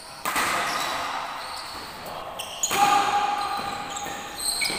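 Badminton doubles rally: rackets striking the shuttlecock and players' shoes on the court floor, with sudden loud hits about a quarter second in and again near three seconds.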